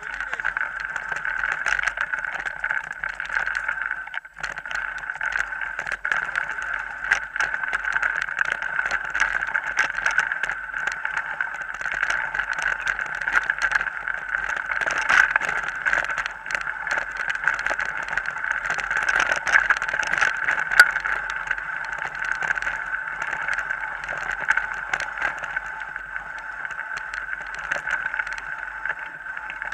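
Mountain bike riding over a rocky dirt trail, picked up by a camera mounted on the bike or rider: a steady whir with constant rattling and sharp clicks as the wheels hit stones and bumps.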